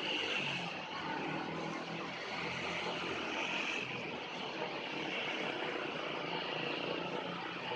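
Steady drone of a vehicle engine with a constant hiss above it.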